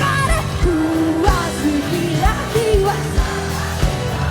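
Live pop-rock band of drums, bass, electric guitar and keyboards playing, with a lead vocal gliding over regular kick-drum beats.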